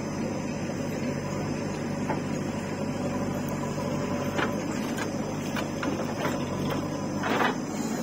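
Diesel engine of a JCB 3DX backhoe loader running steadily under load as it digs and swings its bucket, with a few short knocks from about halfway and a louder clatter near the end.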